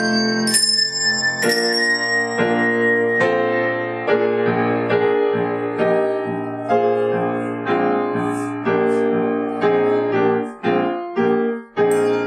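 Brass handbells and a grand piano playing together: a couple of handbells ring out and hang on over the first few seconds, then the piano carries the tune on its own, and the bells come back in near the end.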